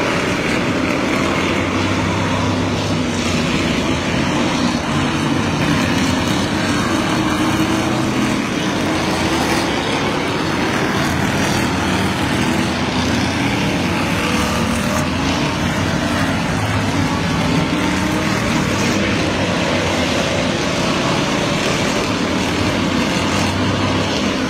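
Engines of a field of Ford stock cars running hard round a figure-8 track: a loud, steady mix of several engines, their pitches rising and falling as cars pass.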